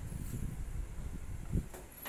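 Cardboard toy box and paper being handled, a low rustling rumble with a single thump about one and a half seconds in as the box comes down onto the lap.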